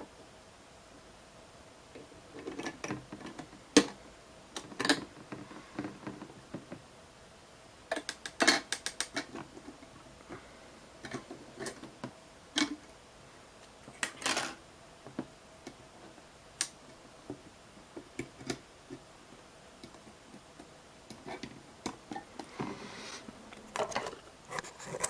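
Scattered clicks, taps and short rattles of hands fitting a processor into an LGA 1150 motherboard CPU socket, working the socket's metal retention lever and load plate.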